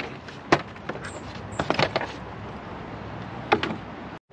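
A few sharp clicks and knocks of tools and engine-bay parts being handled, four or so spread over the few seconds, with one small cluster about two seconds in.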